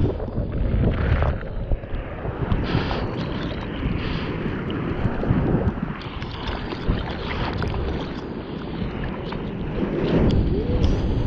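Choppy seawater sloshing and splashing right at the waterline, with irregular splashes and wind buffeting the microphone.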